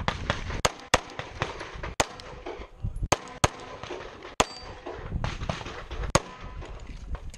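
Semi-automatic pistol shots fired in quick, uneven strings: about eight sharp cracks, some under half a second apart, others a second or more apart.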